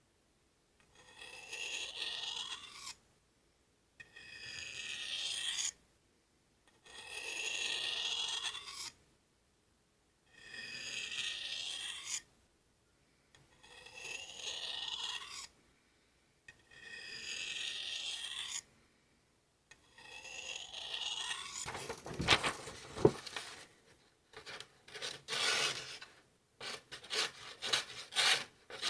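A knife blade scraped along a Gossman sharpening steel in seven long, even strokes, about one every three seconds. From about two-thirds of the way through, the strokes turn quick and short, with sharp clicks.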